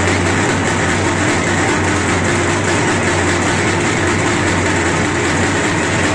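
Loud, steady din of a packed festival crowd mixed with distorted amplified music, with a constant low hum beneath and no breaks.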